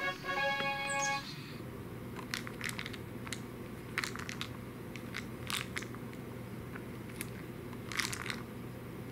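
A short jingle of several brief tones, then scattered clicks and rattles of dry kibble inside a plastic mouse-shaped treat-dispenser toy as a cat bats it across the carpet, over a low steady hum.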